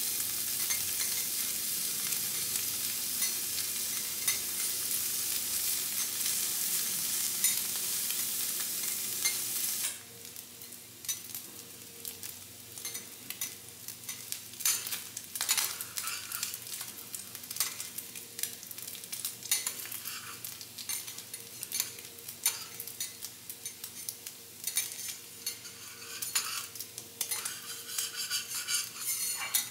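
Food sizzling loudly on a teppanyaki griddle. About ten seconds in the sound drops suddenly to a quieter sizzle, broken by frequent short clicks and scrapes of cooking utensils.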